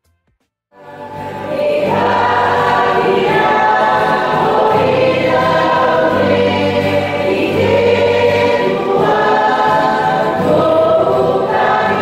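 A church congregation singing a hymn together in many voices, starting about a second in.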